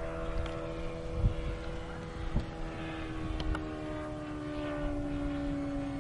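Engine and propeller of a radio-controlled model Zero warbird in flight overhead: a steady drone that slowly drops in pitch. There is a low rumble on the microphone and a single thump about a second in.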